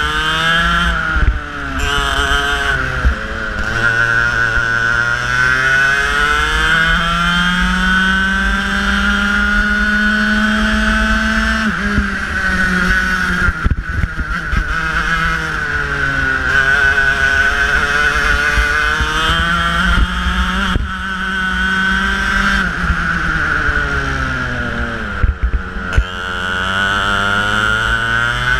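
Racing kart engine heard from the onboard camera at racing speed. Its pitch climbs along the straights and falls away sharply several times as the driver lifts for corners, over a steady low rumble.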